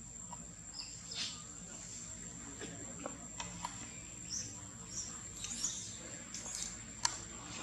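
Tree-canopy ambience: a steady high-pitched insect drone with scattered short bird chirps and a few light clicks, the sharpest about seven seconds in.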